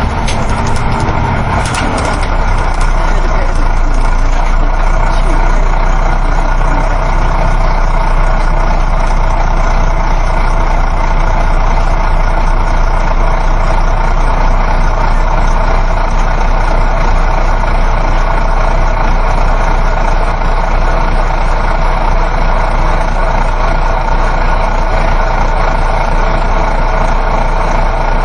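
Interior sound of a moving coach bus: a steady engine hum under continuous road and wind noise. A few sharp clicks sound in the first two seconds, after which it settles into an unchanging drone.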